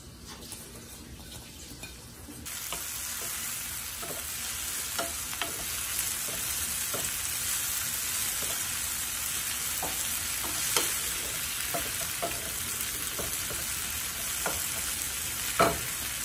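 Fresh coriander leaves and stems frying in mustard oil in a nonstick pan. A steady sizzle starts suddenly about two seconds in, with light taps and scrapes of a wooden spoon stirring, and one louder knock near the end.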